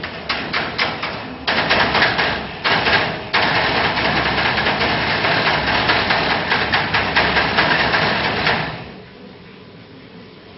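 Loud, dense rattling clatter of many rapid knocks, with two short breaks in the first three seconds, stopping suddenly near the end.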